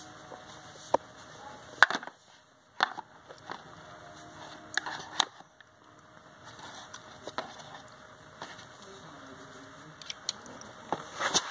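Scattered light clicks and taps of plastic dolls and doll furniture being handled and set down in a plastic toy dollhouse.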